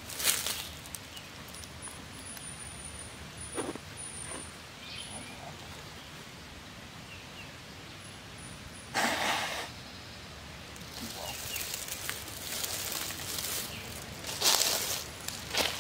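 Quiet woodland background with a few faint bird chirps, broken by short bursts of rustling from clothing and gear being handled: one at the start, one in the middle and one near the end.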